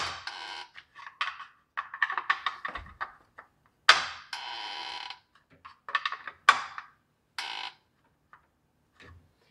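Plastic reverse osmosis filter housing and its housing wrench knocking and clicking as the housing is tightened. Four sharp knocks, at the start, about four seconds in, and twice more a couple of seconds later, each with a short ringing tail, with smaller clicks between.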